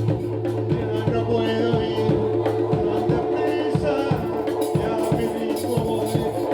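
A live instrumental band of organ and percussion, with bongos and shaker, playing an uptempo groove. Held organ and bass tones run under steady hand-drum strikes.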